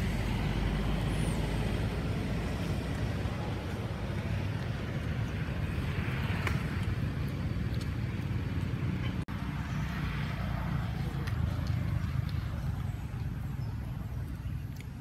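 Steady low outdoor rumble, with a brief dropout about nine seconds in.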